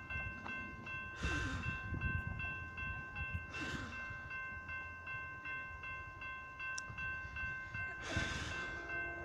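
Railroad crossing warning bell ringing rapidly and steadily with the gates down and lights flashing, signalling an approaching train. Three brief rushing whooshes come and go, about a second in, around three and a half seconds in, and near the end.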